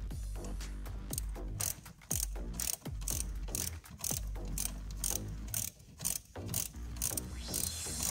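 Ratchet wrench clicking in short repeated strokes, about two a second with brief pauses, as a brake caliper bolt is run in on a microcar's front brake.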